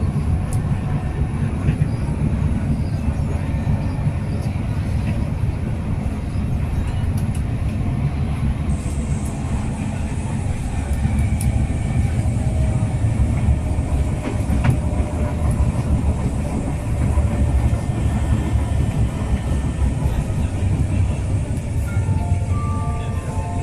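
Singapore MRT train running: a continuous low rumble of the train on the rails.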